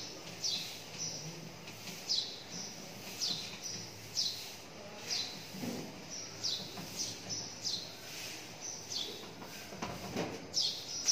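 Whiteboard duster wiped back and forth across a whiteboard, giving a short, falling squeak on each stroke, about two a second. A few soft knocks come through, the loudest near the end.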